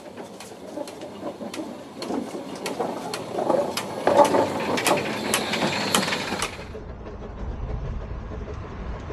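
Narrow-gauge steam locomotive passing close alongside, its motion working and steam hissing from the cylinders, over a regular clicking about twice a second. About two-thirds through, the sound changes abruptly to a low rumble.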